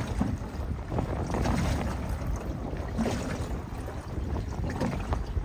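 Wind rumbling and buffeting on the microphone aboard an open aluminium skiff, with faint scrapes and knocks from a knife working a salmon on a wooden cutting board.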